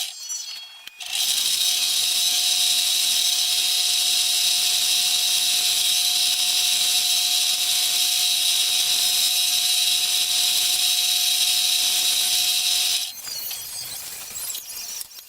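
A small electric power tool running at a steady speed with a high whine. It starts about a second in and cuts off suddenly near the end.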